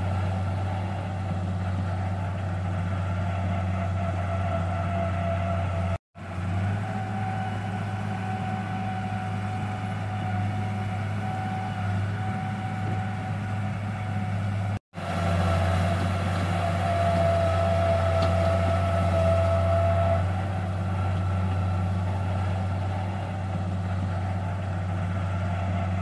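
Small crawler bulldozer's diesel engine running steadily under load as it pushes mud, a low drone with a steady whine above it. The sound cuts out for an instant twice.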